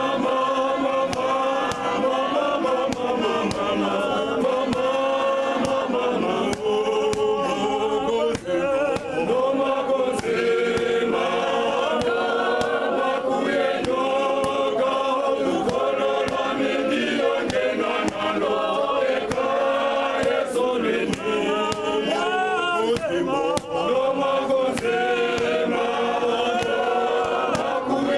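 Men's choir singing a gospel song unaccompanied, several voices in harmony, one steady sung phrase after another.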